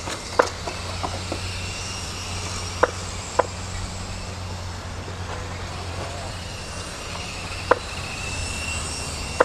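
Electric radio-controlled Mini touring cars racing: a faint high whine from their electric motors and gears drifts up and down over a steady low hum. Several sharp, short clicks stand out at irregular moments; the loudest is about half a second in.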